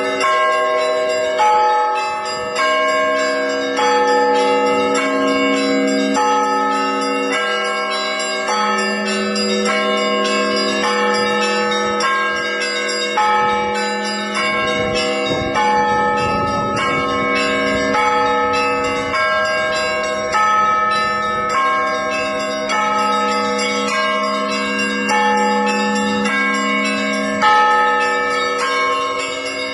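Orthodox church bells ringing a continuous peal: smaller bells struck in a quick, steady run, about one to two strikes a second, over the long, lingering hum of deeper bells.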